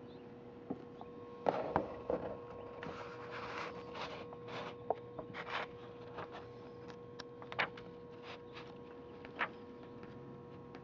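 Pages of an old TV Guide magazine being handled and turned: soft paper rustling with small clicks, busiest in the first half, over a steady electrical hum.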